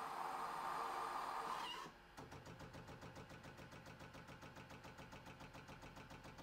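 Miele CM 7750 fully automatic coffee machine working through a flat white. A steady hiss cuts off about two seconds in, and a faint, fast, even pulsing of the machine's pump follows as it moves from the coffee to the milk froth.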